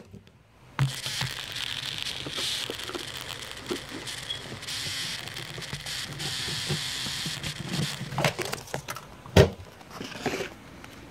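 Handling noise: rustling and crackling with many small clicks, and one sharp knock about nine seconds in, as the terrarium and the lizards' container are worked at.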